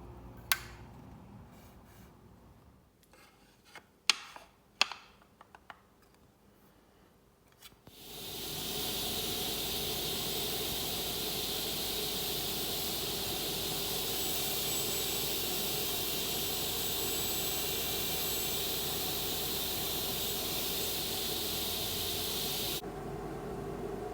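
A few sharp knocks of wood and jig parts being handled, then the Felder KF700S sliding table saw/spindle moulder starts up and runs steadily with a loud hiss and a steady hum. Near the end the hiss cuts off suddenly and a lower hum goes on.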